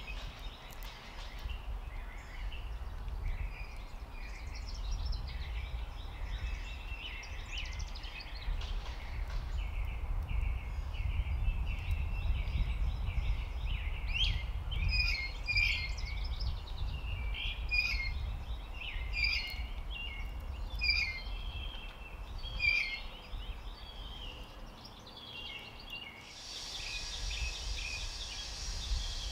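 Wild songbirds chirping and calling, many short overlapping notes, over a low steady outdoor rumble. A steady high hiss comes in near the end.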